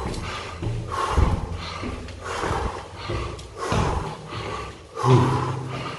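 A man panting hard close to the microphone, with a loud heavy breath about every second and a half, out of breath from climbing many flights of stairs.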